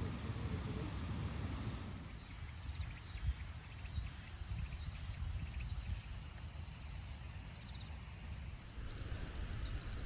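Outdoor ambience of insects trilling steadily in high, thin tones that fade and return, over a low rumble of wind on the microphone.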